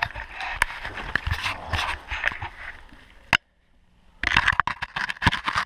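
Scraping and rustling of clothing and bodies moving over stone and dirt in a low tunnel, with many sharp clicks and knocks of the handheld camera rubbing. The sound breaks off for under a second a little past halfway, then resumes.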